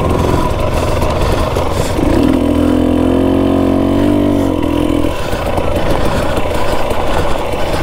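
Dirt bike engine running, revving up about two seconds in, holding the higher pitch, then dropping back about five seconds in.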